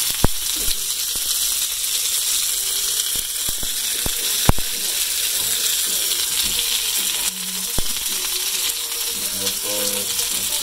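Potato tortillas frying in oil in a pan: a steady sizzle with a few sharp pops.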